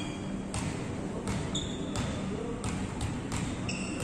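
Volleyballs being struck and bouncing on a hard sports-hall floor, a sharp smack about every 0.7 seconds, with two short sneaker squeaks on the court.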